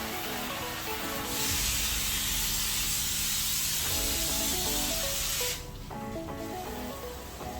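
Pressure washer spray hissing with a low rumble for about four seconds, starting about a second in and cutting off suddenly, over background music.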